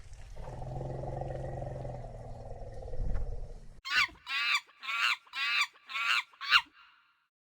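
Animal calls: a low, drawn-out grumbling call, then six short high-pitched squealing calls in a row, each falling in pitch.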